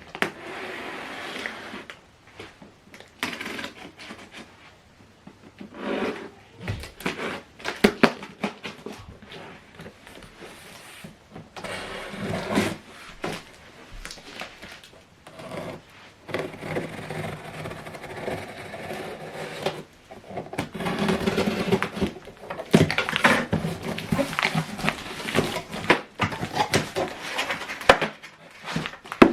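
Cardboard box and packaging being handled and opened: stretches of rustling and scraping broken by many sharp knocks and clicks, loudest in the second half.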